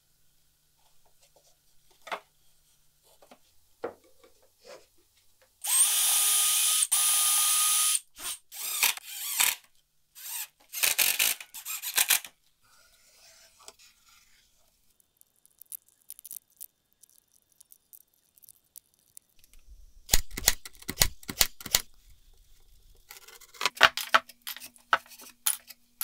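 Cordless drill-driver driving screws into cedar boards in short runs, the longest lasting about two seconds with a brief break, followed by shorter runs. Clusters of sharp wooden knocks come later, about twenty seconds in and again near the end.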